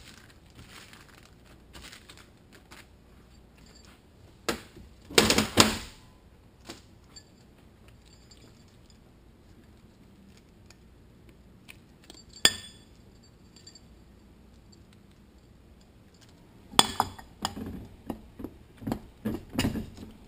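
Steel automatic-transmission clutch parts clinking and knocking against each other and the metal workbench as they are handled and fitted by hand. There is a loud cluster of clinks about five seconds in, a single ringing clink around twelve seconds, and a run of knocks over the last few seconds.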